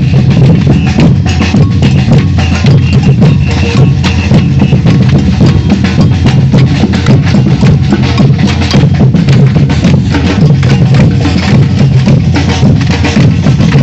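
Batucada samba percussion band playing loud and without a break: deep bass drums under a fast, dense pattern of sharper drum and hand-percussion strikes.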